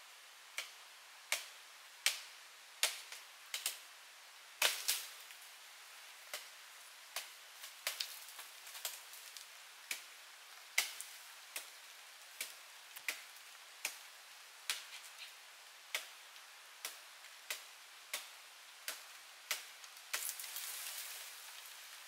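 Light, sharp chopping knocks repeated a little more than once a second over a faint steady hiss, with a short rush of noise near the end.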